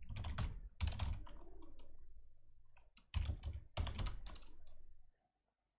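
Computer keyboard typing in short runs of keystrokes, stopping about five seconds in.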